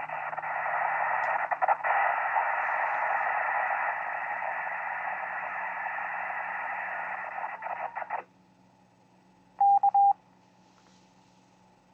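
Loud hissing noise from a 2-metre FM transceiver's speaker, received on the jammed 145.700 MHz repeater channel; it cuts off abruptly about eight seconds in. About a second and a half later comes a short, loud beep tone in three quick pulses, then faint hiss.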